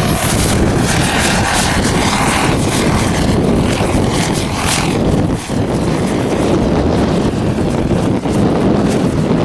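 Rotortec LongRanger radio-controlled scale helicopter flying past, its engine and rotor running steadily.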